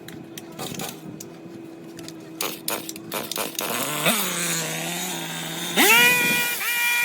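Motor of a garden power tool running steadily at low speed with a few clicks, dipping briefly about four seconds in, then speeding up quickly to a high, steady whine near the end.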